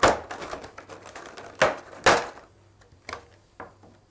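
Rigid clear plastic packaging tray being pulled open and handled: a sharp plastic crackle at the start, two more about a second and a half and two seconds in, then a few lighter clicks.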